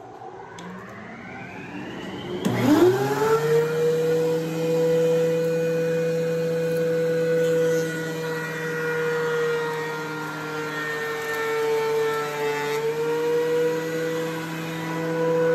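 Benchtop thickness planer starting up. Its motor winds up in pitch over the first couple of seconds, jumps louder about two and a half seconds in, then runs with a steady whine while a glued-up board is fed through the cutter head to smooth the top and take off the excess glue.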